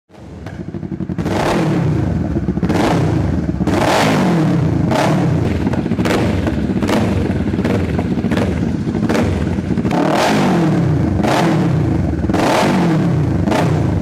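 Kawasaki Vulcan 650's parallel-twin engine revved through a custom exhaust with short throttle blips about once a second, the pitch rising and falling each time.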